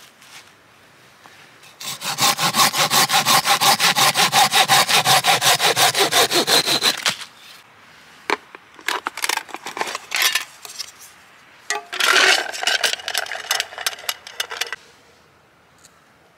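Saw cutting through a thin wooden branch with fast, even back-and-forth strokes for about five seconds. It is followed by scattered clicks and knocks of things being handled, and a second short burst of scraping near the end.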